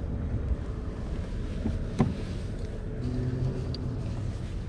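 Steady low rumble of wind on the microphone over the water, with a single sharp click about two seconds in from the fishing rod and baitcasting reel being handled.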